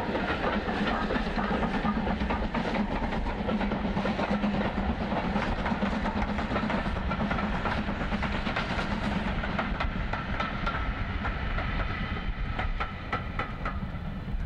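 BR Standard Class 4 2-6-4 tank locomotive running past with a train of coaches, steam and rolling noise steady, the coach wheels clicking over the rail joints, with the clicks coming thick and fast in the last few seconds as the final coaches pass.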